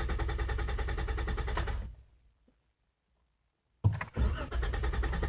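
2014 Jeep Wrangler's starter cranking the engine steadily without it catching. The cranking stops about two seconds in, and after a short silence the starter cranks again. The engine fails to start.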